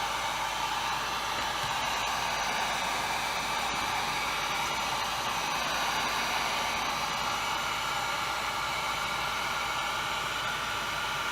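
Heat gun blowing steadily, a constant rushing hiss with a faint whine, used to heat a chainsaw crankcase half before the crankshaft goes in.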